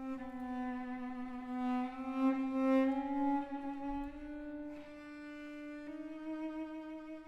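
Background music: a slow bowed-string melody with long held notes that step gradually upward in pitch.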